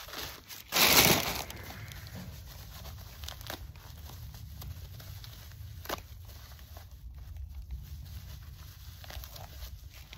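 Plastic and paper packaging being pulled apart and crumpled by hand while unwrapping a part, with one loud tearing crinkle about a second in, then quieter rustling and a few small clicks over a steady low rumble.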